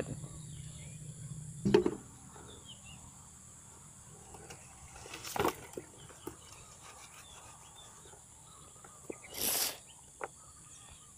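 A steady high insect chorus with scattered handling noises from eel traps and a landing net: a knock about two seconds in, a brief rustle in the middle and a louder half-second rustle near the end.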